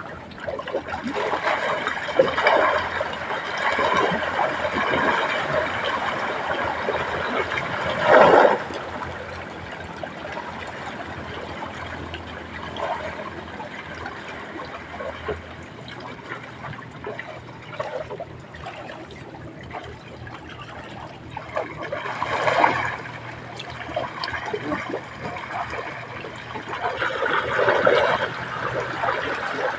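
Water splashing and trickling, with a few short louder splashes.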